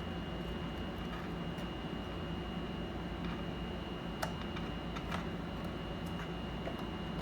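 A few light, sharp clicks and taps, spaced about a second apart near the end, over a steady low hum with a faint high whine.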